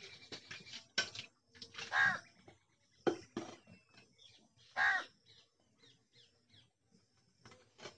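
A crow cawing twice, about two seconds in and again near five seconds in, each call short. Between the calls come short hissing squirts of milk into a steel pail as a cow is milked by hand.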